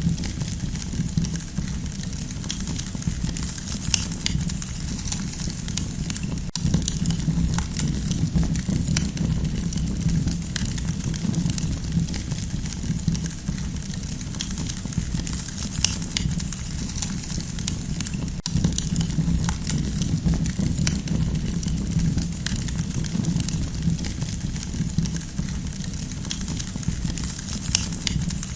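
Campfire burning: a steady low rumble of flames with frequent small pops and crackles scattered throughout.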